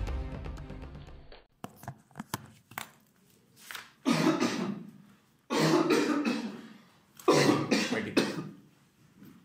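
A man coughing in three fits, each about a second long and a second or two apart: the persistent cough of a tuberculosis patient.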